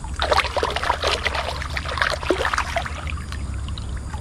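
Water splashing and sloshing in a shallow, muddy creek as someone wades or moves through it, with irregular crackles of twigs and leaves, busiest in the first couple of seconds and then easing off.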